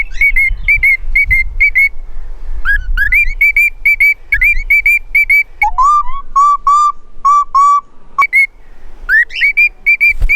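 Cockatiels calling in a rapid series of short, high whistled chirps, about three to four a second. In the middle, a run of lower-pitched chirps takes over for a couple of seconds before the high chirps return.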